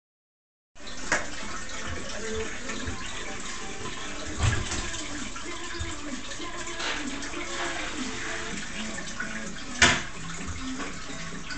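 Water running steadily from a pipe outlet into a trough of floating plants, with a few sharp knocks, the loudest near the end.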